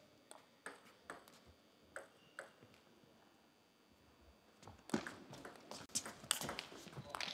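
Table tennis ball clicking: a few single bounces in the first few seconds while the serve is prepared, then, after a short pause, a rally of quick sharp clicks as the ball is struck by the rackets and bounces on the table.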